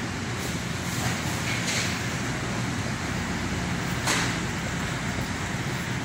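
Steady supermarket background noise: a constant hum and hiss with a few short clicks, the clearest about four seconds in.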